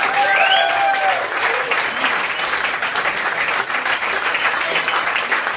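Audience applauding and cheering, with a whoop rising about half a second in.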